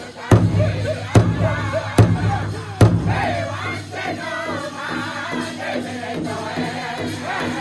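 Powwow drum group singing in unison over a large powwow drum, the voices wavering and high. Four heavy drum strikes land about a second apart in the first three seconds, after which the drumming drops away to faint beats while the singing carries on.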